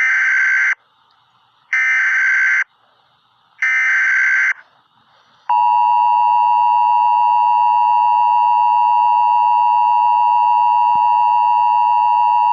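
Emergency Alert System tones: three short bursts of SAME header data tones about two seconds apart, then, about halfway through, the steady two-tone EAS attention signal begins and holds.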